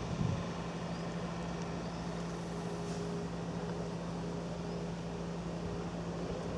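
Steady low mechanical hum at a constant pitch, like a machine or engine running without change.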